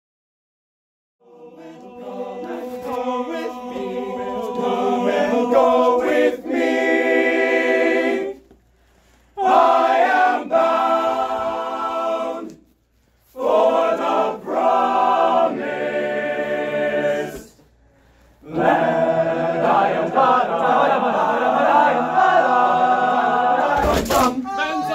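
Men's choir singing a cappella in close harmony, starting about a second in, in several sustained phrases with short breaks between them. A brief thump near the end.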